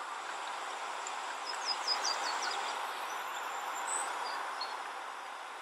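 Outdoor woodland ambience: a steady hiss with a small bird chirping, a quick run of about five short falling notes around two seconds in, then scattered single chirps.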